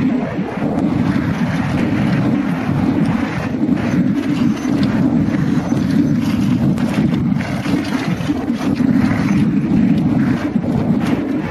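Wind rushing over the microphone of a camera riding a downhill mountain bike at speed, with a steady loud rumble and the bike clattering over rough trail in many short knocks.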